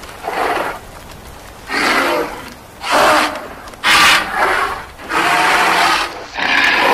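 Dinosaur roar sound effects: a series of short, rough roars, each under about a second long, with short gaps between them.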